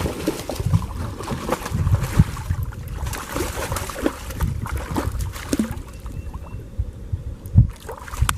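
A hooked channel catfish being brought alongside and landed in a kayak: splashing water and a run of irregular knocks against the hull, with one sharp loud knock near the end.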